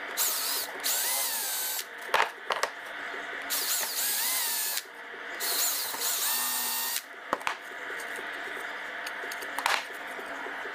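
Cordless drill running into plywood in three short bursts, its motor whine rising and falling as the trigger is squeezed and eased. A few sharp knocks fall between the bursts and near the end.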